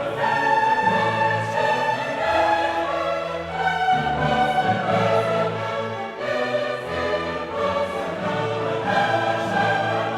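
Background music: orchestral or choral music with sustained notes and changing chords.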